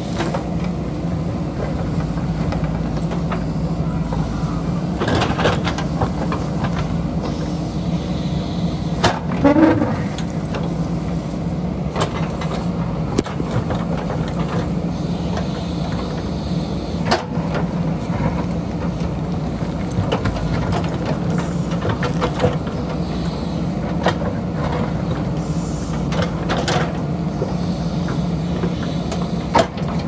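JCB backhoe loader's diesel engine running steadily under load while the backhoe bucket digs and scrapes through rocky soil, with sharp knocks and clatters of stone and steel now and then.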